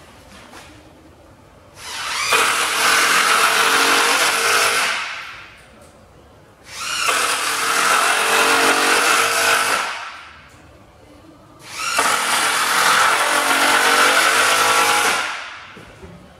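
A motor run up three times, each run lasting about three seconds and winding down between, with a steady pitch under a loud hiss.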